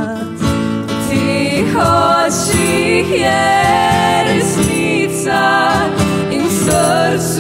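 A song: a voice singing long, wavering, gliding notes over a steady instrumental accompaniment.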